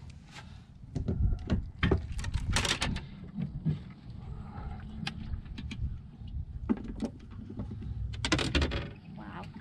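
Several short knocks and clatters of gear being handled on a fishing boat's deck, clustered about one to three seconds in and again near the end, over a low steady rumble.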